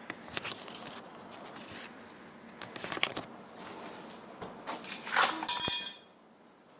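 Handling noise of small clicks and rustles, then a louder brief metallic clink with a high ringing about five and a half seconds in.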